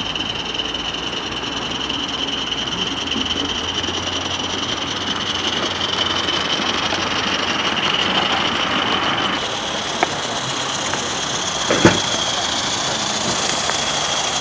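Coal-fired 16 mm scale live-steam garden railway locomotive running with its wagons: a steady hiss of steam and running noise. A sharp knock about twelve seconds in, with a fainter click just before it.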